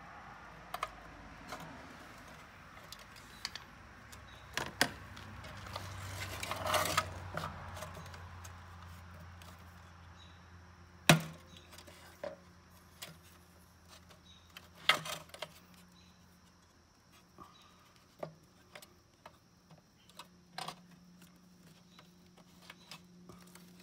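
Scattered plastic clicks, scrapes and snaps of a Depot aftermarket headlight being pried apart with a screwdriver and pliers, its lens clips working loose. The sharpest snap comes about halfway through, another a few seconds later.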